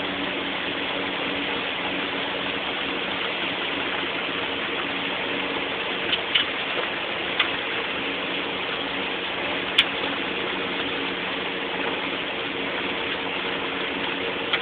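Vehicle engine idling, a steady hum, with a few faint clicks about six to ten seconds in.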